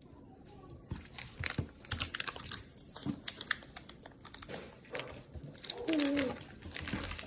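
Irregular clicks and rustling, like small objects being handled, with a short gliding vocal sound about six seconds in.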